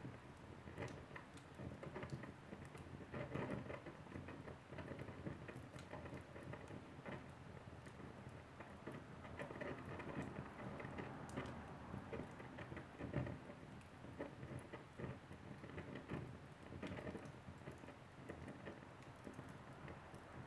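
Wood fire crackling in a fireplace: irregular small pops and snaps over a low, soft rumble of burning, with a louder pop about two-thirds of the way through.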